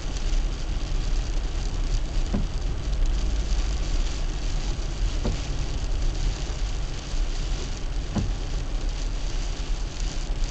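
Car driving on a wet road in rain: steady rumble of tyres and engine with the hiss of rain and spray, and a short knock about every three seconds.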